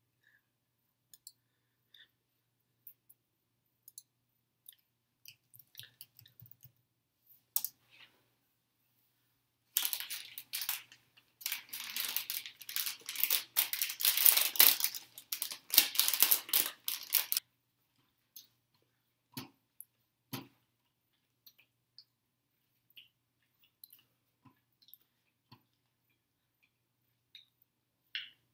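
Scattered faint clicks, with about seven seconds of loud crackling rustle in the middle that stops suddenly.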